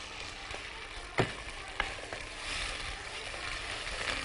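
Water being poured from an electric kettle into a pot of tomato sauce on the heat, a soft hiss that swells about halfway through, with a sharp knock about a second in.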